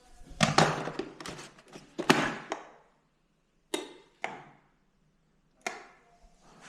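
A series of sharp knocks and clatters. There is a cluster in the first second and another about two seconds in, then two single knocks about half a second apart near four seconds and one more knock near six seconds.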